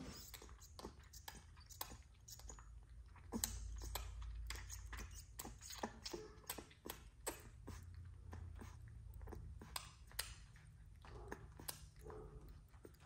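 Newborn XL American Bully puppy suckling from a feeding bottle: faint, irregular wet clicks and smacks several times a second.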